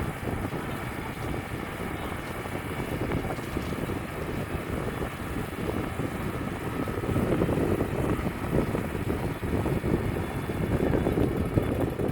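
Wood-Mizer LT35 portable band sawmill running, a steady rough engine-and-machine noise that grows louder about seven seconds in, with wind buffeting the microphone.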